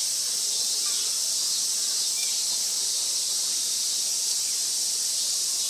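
Cicadas droning in a steady, high-pitched chorus.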